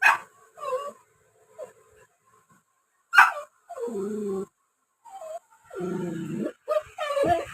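Puppy barking in short, sharp yips a few seconds apart, with two longer whining cries between them and a quick run of yips near the end.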